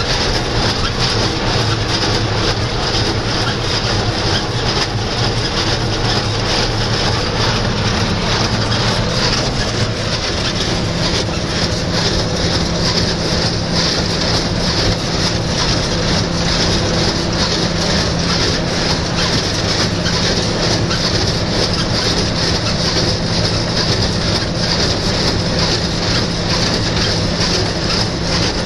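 John Deere 2140 tractor's diesel engine running steadily while a New Holland 268 small square baler works behind it with a continuous mechanical clatter. About ten seconds in, the engine's low note shifts up to a higher steady tone.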